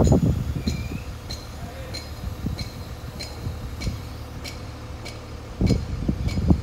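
Wind buffeting the microphone in gusts, strongest at the start and again near the end, over the steady running of the crane truck's engine. A faint, even ticking runs through it, about three ticks every two seconds.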